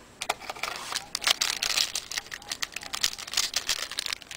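A trading-card pack wrapper crinkling and tearing as the pack is opened and handled, with a dense, irregular crackle.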